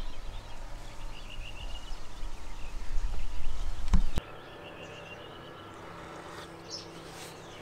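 Outdoor ambience: small birds chirping in short trilling calls over a low rumble. About four seconds in there is a sharp click, after which the rumble stops and only a quiet background with a few high bird calls remains.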